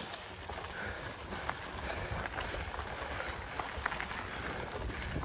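A mountain biker breathing hard while pedalling uphill, a hissing breath about every two-thirds of a second, over a low rumble and scattered small clicks from the bike on the trail.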